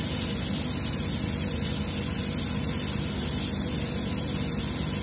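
Steady sizzling hiss of cauliflower, vegetables and scrambled egg frying in a hot pan.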